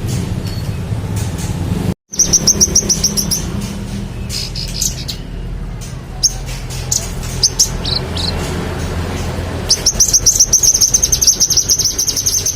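Manggaran songbird singing in loud, fast trills of high repeated notes: one lasting about a second and a half, starting about two seconds in, and a longer one near the end, with scattered single chirps between. A low rumble of background noise runs underneath.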